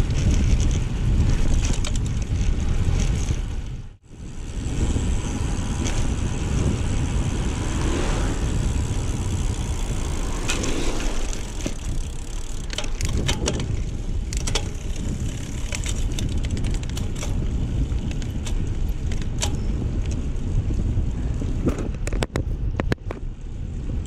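Wind rushing over the microphone and a road bike's tyres rumbling on the road surface while riding at speed, with scattered clicks and knocks from bumps in the road. The sound cuts out briefly about four seconds in.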